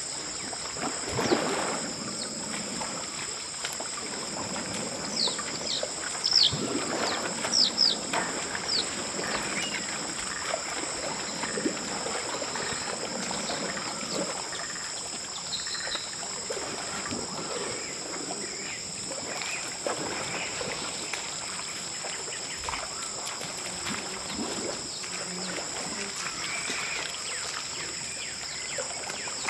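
African forest elephants sloshing and splashing through a shallow muddy pool, over a steady high insect drone. A few short falling bird chirps come about five to nine seconds in.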